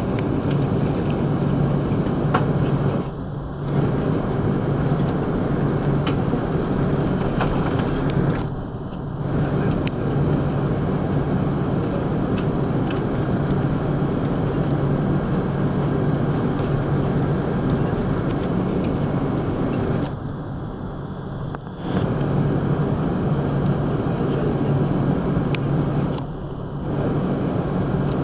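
Steady cabin noise inside an Airbus A330-300 taxiing: the engines at taxi power and the air-conditioning, with a steady low hum underneath. Four times the sound briefly drops and goes dull.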